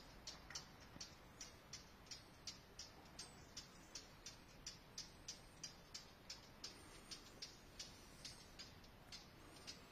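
Faint, regular ticking, about three ticks a second, over near silence.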